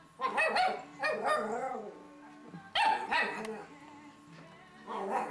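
Cairn terrier puppy play-barking at a cat. Four short bouts of barking come about a second apart at first, then after a pause.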